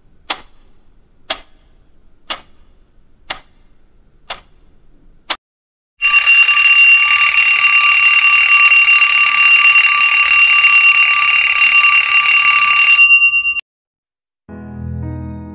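Twin-bell alarm clock ticking six times, once a second, then its bells ringing loudly for about seven seconds before cutting off abruptly.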